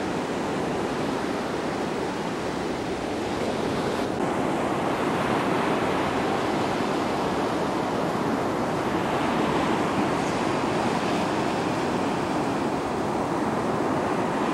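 Steady rushing of waves and wind: an even wash of noise with no distinct events, swelling slightly about four seconds in.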